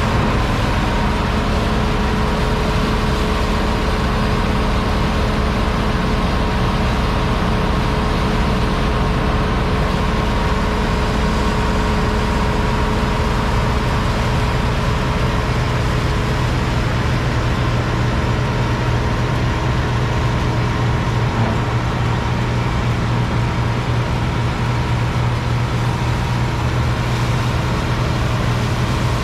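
John Deere 6600 combine running steadily while harvesting wheat: a loud, dense mechanical drone with several steady humming tones. The low hum shifts slightly about halfway through.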